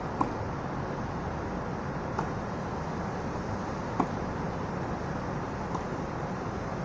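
Tennis ball struck by racquets in a baseline rally: four sharp pops about two seconds apart, the third the loudest, over a steady low background noise.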